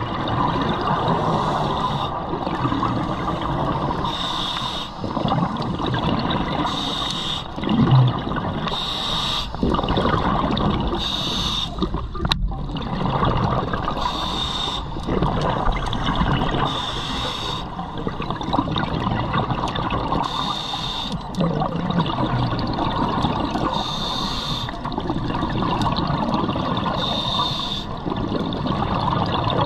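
Scuba diver breathing through a regulator underwater: a steady wash of bubbling, with a burst of hiss and bubbles about every three seconds as each breath goes through the regulator.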